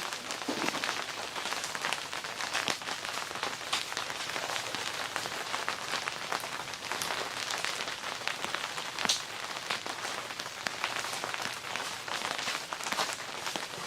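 Steady rain falling, with many separate drops striking close by as sharp taps among the even hiss.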